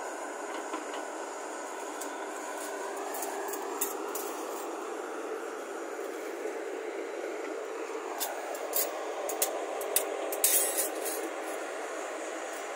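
Hyundai crawler excavator's diesel engine and hydraulics running under load, the engine note rising and falling as the arm works. A run of sharp clanks and rattles comes about two-thirds of the way through, loudest near the end.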